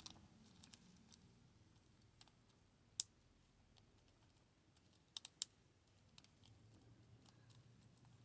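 Scattered small clicks of a low hook pick and tension wrench working the pins of a 5-pin Yale deadbolt, over near silence. The sharpest click comes about three seconds in, and a close pair just after five seconds.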